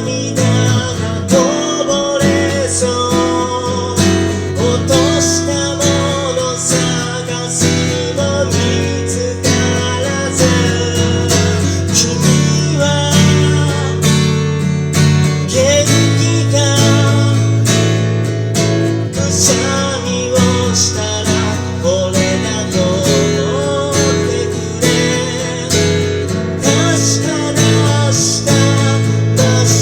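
Acoustic guitar being strummed, playing through a song's chords.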